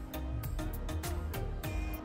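Music with a steady, quick beat over sustained notes and a strong bass line.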